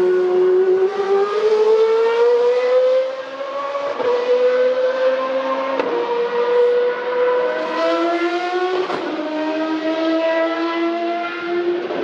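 Single-seater racing car engine at high revs, climbing in pitch under acceleration, then dropping sharply at gear changes about 6 and 9 seconds in.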